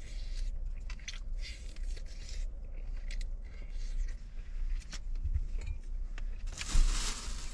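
A person chewing and biting into stewed chicken, with irregular small crunching and smacking sounds over a steady low rumble. A louder burst of rustling noise comes near the end.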